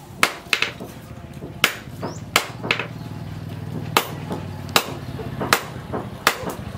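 Hand hammer striking a red-hot steel bar on an anvil while forging a knife blade: sharp metallic blows, about nine of them at roughly one every three-quarters of a second, a few followed by a quick lighter tap.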